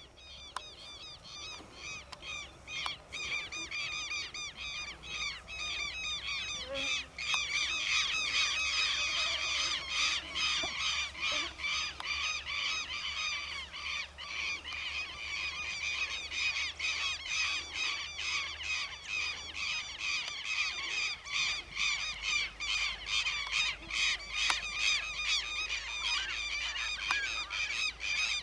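Many birds calling at once: harsh, rapidly repeated calls that overlap, swelling over the first several seconds and then keeping up steadily.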